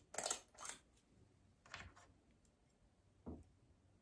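Near silence broken by four short, soft rustles of handling noise, two in the first second and two more further on.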